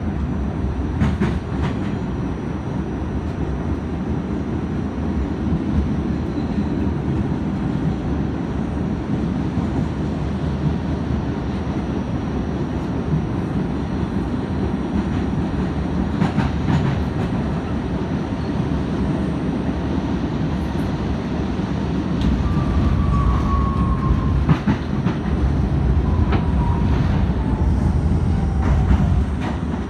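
R68A subway train running at speed, heard from inside the car: a steady rumble with scattered clicks of the wheels over rail joints. After about 22 s the rumble grows louder, and two short falling whines sound.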